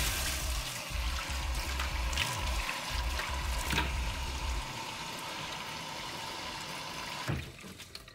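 Tap water running and splashing into a sink while a face is rinsed, with a few louder splashes; the running water dies away about seven seconds in.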